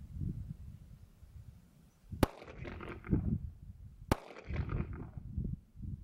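Two shots from a 9mm Glock 43 pistol, about two seconds apart. Each is a sharp crack followed by a short fading echo.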